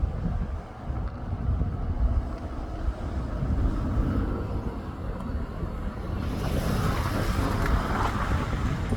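Wind buffeting the microphone, with a JR East E231/E233 series electric train's running noise swelling into a broad rush from about six seconds in.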